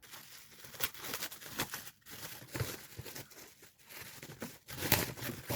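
Present being unwrapped: wrapping being torn and crinkled in irregular bursts, loudest near the end.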